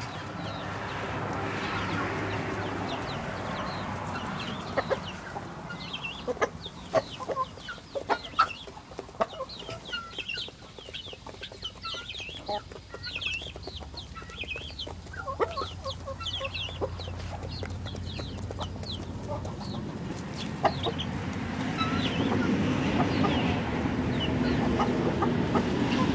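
Chickens clucking, with a busy run of short, sharp calls through the middle. A low rumble builds up near the end.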